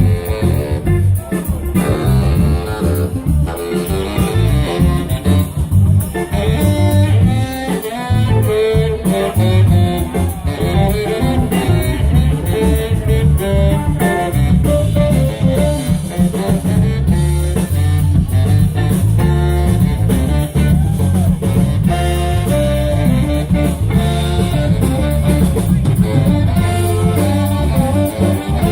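A blues band playing live without vocals: drum kit and bass keep a steady groove under guitar and a lead instrument.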